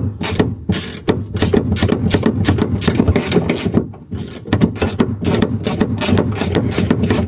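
Ratchet wrench clicking rapidly as a fastener is taken off, with a brief pause about four seconds in.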